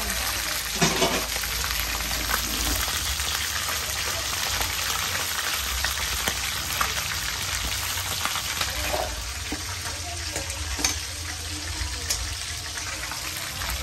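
Dried tonguefish (khô cá lưỡi trâu) frying in hot oil in a pan: a steady sizzle with many scattered small crackles and pops.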